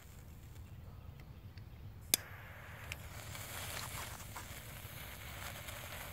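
A sharp click about two seconds in, then a thermite and gunpowder mix burning in a clay flower pot with a soft hiss and small crackles, swelling around the fourth second. The burn is weak and incomplete, with much of the mix left unburned.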